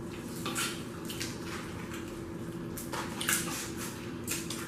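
Boiled crawfish being twisted apart, peeled and sucked: several short wet squelches and slurps, the loudest about three seconds in, over a faint steady hum.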